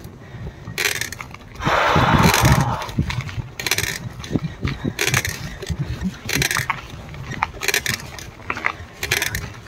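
Mountain bike rattling and clicking over rough ground: irregular sharp knocks and clatters, with a short rush of noise about two seconds in.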